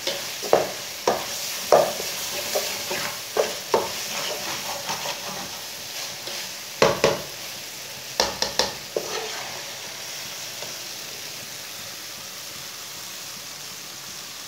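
Red masoor dal and chopped spinach frying in oil in a metal karahi, a slotted metal spatula clicking and scraping against the pan as it is stirred. The clinks stop about nine to ten seconds in, leaving a steady sizzle.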